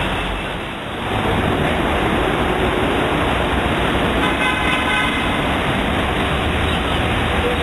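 Steady road traffic noise, with one short car horn toot a little over four seconds in.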